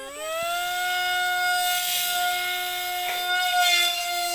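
Electric motor of an RC model Dassault Rafale jet spooling up with a rising whine, then holding a steady high-pitched whine at launch power, with a rush of air above it.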